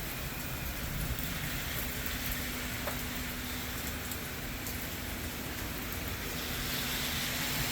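Heavy rain falling steadily during a thunderstorm, an even hiss of rain, with a faint steady hum underneath.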